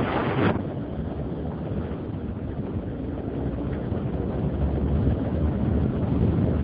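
Wind rushing over the microphone of a BMW F650 Funduro motorcycle riding along a road at speed, a steady low rumble of wind and running noise, with a sharper gust in the first half-second.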